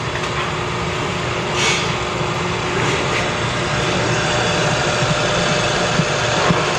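Steady background hum and hiss, with a soda fountain pouring soda into a paper cup near the end.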